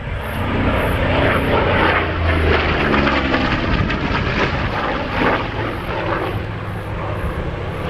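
Vought F4U Corsair's radial piston engine and propeller droning loudly as the warbird makes a low pass. Its pitch falls as it goes by, about one to three seconds in.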